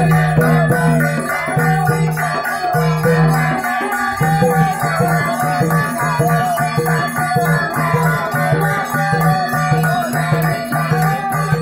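Live folk dance music: drums and jingling rattles beating a steady, fast rhythm, with a short break in the low drumbeat about four seconds in.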